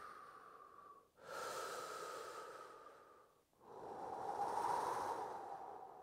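A man's slow, deep breathing, paced with the movements of a slow tai chi–style form: a breath trailing off about a second in, then a long breath of about two seconds and another of about three.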